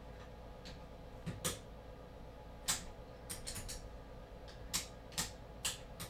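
Front-panel pushbutton switches of a Mark-8 minicomputer reproduction clicking as they are pressed to reset the running program: about eight short, sharp clicks at uneven intervals. Under them is a faint steady electrical hum.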